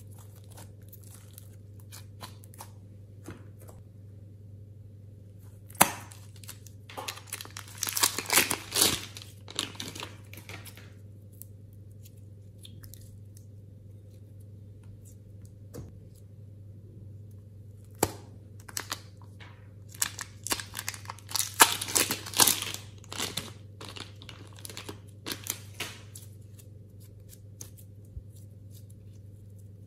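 Soft, sticky slime being squeezed and stretched by hand, giving two spells of wet crackling and popping clicks with quieter scattered clicks between. A steady low hum runs underneath.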